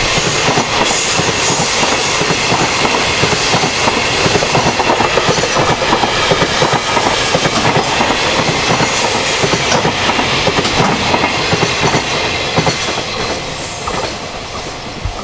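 Freight train passing close by on the Tokaido Main Line, its wheels running loudly over the rails, with the noise beginning to fade over the last few seconds as the train goes by.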